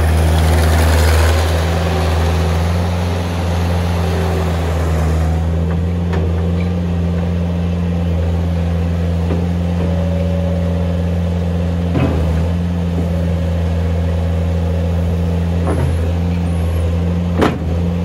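A 2005 New Holland LS160 skid steer's diesel engine running steadily and smoothly while the machine drives and turns. It is louder, with more hiss, for the first few seconds. A couple of short, sharp knocks come about two-thirds through and again near the end.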